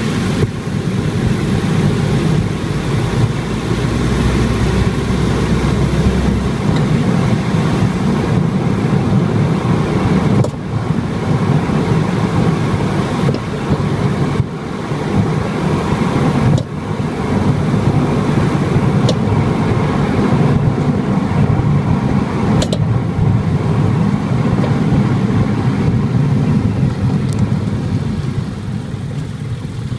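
A car driving, heard inside the cabin: steady road and engine noise, with a few short sharp clicks. The car's right-front BLITZ ZZ-R coilover knocks over bumps, a fault the maker traced to a damper cartridge that had lost its gas charge.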